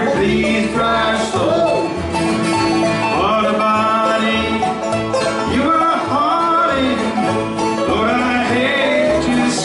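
Acoustic bluegrass band playing live, with banjo and guitar under a melody line that slides and bends in pitch.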